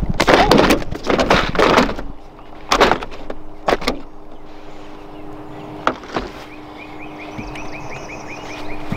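Clattering and sharp knocks as a freshly weighed crappie is taken off a hand-held fish scale and handled in a jon boat, loudest in the first two seconds, with single knocks after that. A steady low hum runs underneath, and a quick run of short chirps comes near the end.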